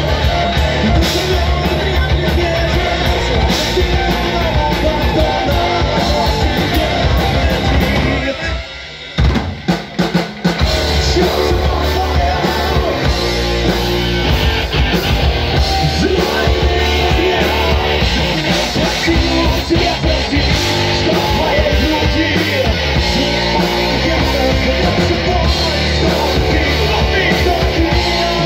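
Live rock band playing loudly: electric guitars, drum kit, violin and a lead singer. About eight seconds in the band drops out for roughly two seconds, with a few short hits, then comes back in at full level.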